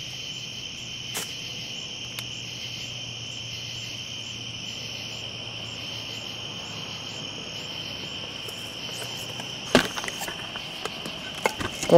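Steady, unbroken high-pitched trilling of a chorus of crickets. A sharp knock about ten seconds in and a few clicks and rustles near the end.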